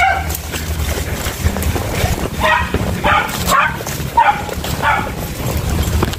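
A hunting beagle gives voice in short, high yelping bays, about six of them, mostly in the middle of the stretch: a hound calling while it is on the chase. A steady low rumble of movement runs underneath.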